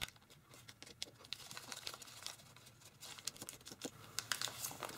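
A square sheet of origami paper being folded and pressed flat by fingers: faint, scattered crinkles and light ticks of the paper creasing, busier in the second half.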